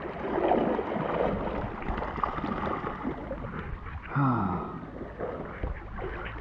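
Water sloshing and splashing as a rottweiler swims through a shallow river and a person moves in the water beside it. About four seconds in there is a short voice that falls in pitch.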